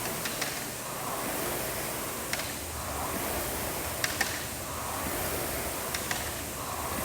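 Air rowing machine's fan flywheel whooshing, swelling with each pull about every second and a half, with light scattered clicks.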